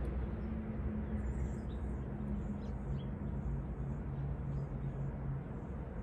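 Outdoor ambience: faint, scattered bird chirps over a steady low hum.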